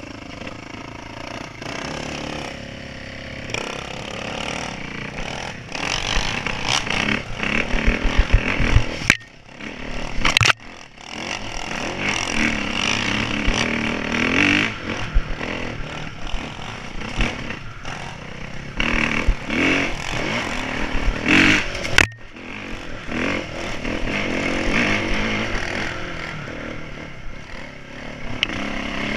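Dirt bike engine heard from on the bike, revving up and down as it is ridden over a rough, rocky trail, with clattering knocks from the bike over the ground. The sound drops out sharply for a moment twice, about nine and twenty-two seconds in.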